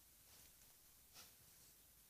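A single faint, short hiccup from a ten-week-old Alaskan Malamute puppy about a second in, in near silence.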